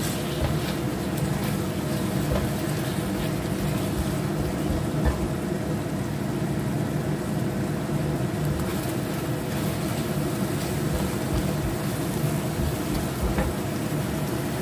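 Steady low mechanical hum over a thick soy-based sauce simmering in a nonstick wok, being thickened with cornstarch slurry, while a silicone spatula stirs the mussels, with light scrapes and taps now and then.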